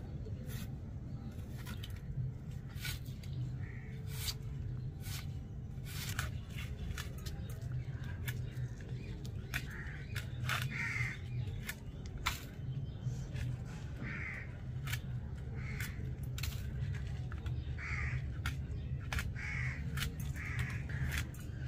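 Birds calling with short, harsh calls every second or few, most often in the second half, over frequent sharp clicks and a steady low rumble.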